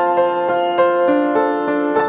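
Background piano music: a gentle keyboard melody of single notes, about three new notes a second.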